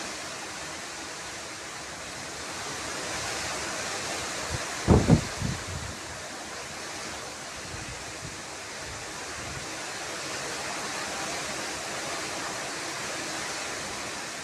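Ocean surf washing on the shore: a steady, even hiss of waves. About five seconds in there is one brief, louder low thump.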